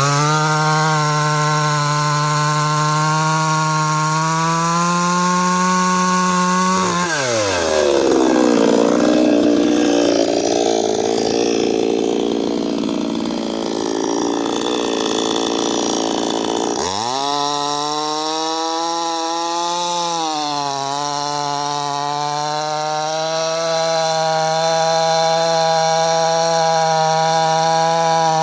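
55 cc two-stroke petrol chainsaw running at high revs. About seven seconds in the revs fall sharply and the saw runs lower and rougher for about ten seconds, then the revs climb back up and hold high.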